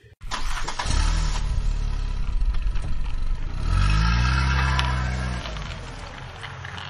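Car engine sound effect: an engine starts and runs about a second in, revs up with a rising pitch a little past the middle, holds, then dies away near the end.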